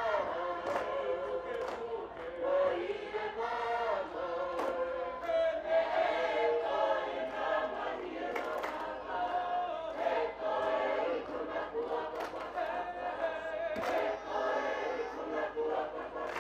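A large group of male and female voices singing a Tongan lakalaka together in several parts, a continuous choral chant. A few sharp percussive hits stand out, clearest about four and a half, eight and a half and fourteen seconds in.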